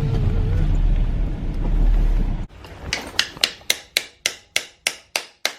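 Low, steady rumble of a car driving, cut off abruptly about two and a half seconds in. Then comes a run of sharp, evenly spaced knocks, about three a second, each ringing out briefly.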